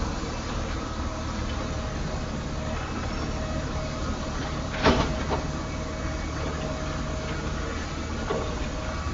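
Road milling machine running steadily, its engine and cutting drum making a constant mechanical rumble, with a sharp clank about five seconds in and a lighter one near the end.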